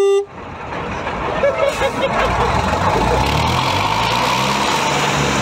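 Engine of an armoured military vehicle running, heard from on top of the vehicle: a low, steady hum that grows louder about two seconds in, with voices in the background.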